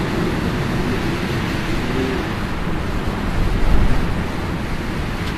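Wind buffeting the microphone outdoors: a steady, deep rumbling noise that surges in a gust about three and a half seconds in.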